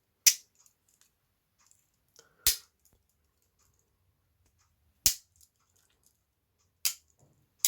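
Swiss Army knife tools snapping against their back springs: about five sharp metallic clicks, one every one to two and a half seconds.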